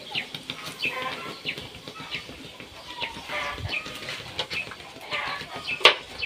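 Birds chirping repeatedly in short high notes, with a sharp knock near the end.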